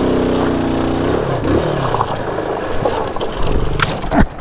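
Heavy touring motorcycle engine running on a steep rocky descent; its steady note breaks off about a second in. Rough scraping follows, then two sharp knocks near the end as the bike goes down on the rocks.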